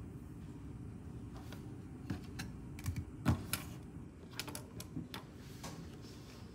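An irregular run of light clicks and clacks from plastic pens and stationery being picked up and set down on a desk, loudest a little after the middle, over a steady low room hum.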